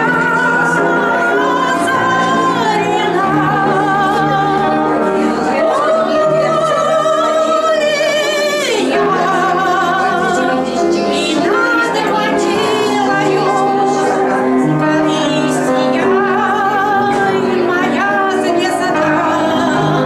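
Music: a singing voice in an operatic style with wide vibrato over a sustained instrumental accompaniment, with a quick falling run near the middle.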